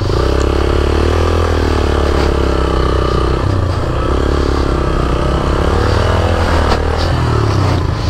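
Motorcycle engine running under load on an off-road hill climb, its pitch rising and falling as the throttle is worked.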